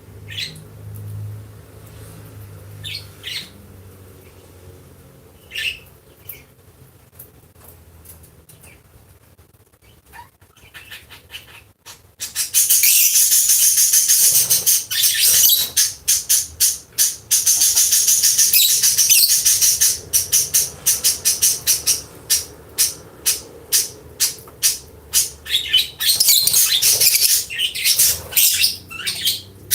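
Lovebirds calling: a few scattered chirps, then about twelve seconds in a sudden loud, dense chorus of rapid shrill chirping that carries on, breaking into quick separate calls toward the end.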